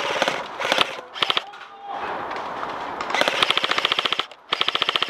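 Airsoft guns firing: scattered single shots at first, then two rapid full-auto bursts, a longer one about three seconds in and a shorter one near the end.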